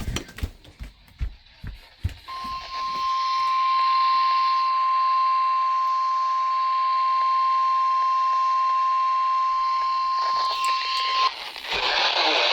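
A weather radio's steady single-pitch alert tone starts about two seconds in and cuts off suddenly some nine seconds later, over a radio static hiss, with crackles before it. It is the NOAA Weather Radio warning alarm tone (1050 Hz) that signals a warning broadcast.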